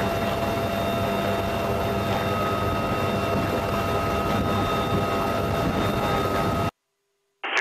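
UH-1Y Venom helicopter running on the ground, heard from inside its open cabin: a steady rush of engine and rotor noise with a constant turbine whine. It cuts off abruptly near the end.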